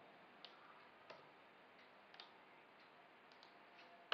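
Near silence with a few faint, isolated clicks of a computer mouse and keyboard, and a sharper click right at the end.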